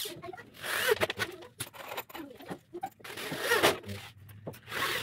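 Corded electric drill run in short bursts, its bit boring into a pine bed post; the loudest burst comes about three and a half seconds in.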